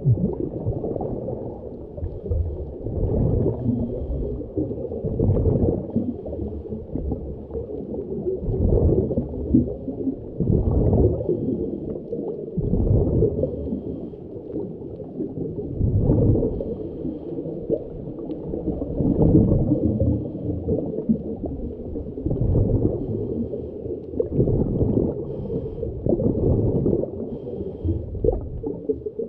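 Muffled underwater bubbling and gurgling from a diver's exhaled breath, swelling and fading every two to three seconds.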